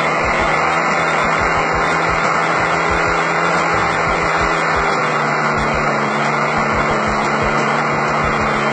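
Magnum .46 nitro glow engine of a model airplane running steadily at high speed, with wind buffeting the microphone.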